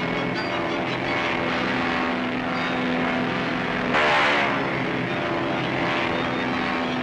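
Animated-cartoon soundtrack with no dialogue: a steady droning of several held tones, with a louder rushing swell about four seconds in that falls in pitch as it fades.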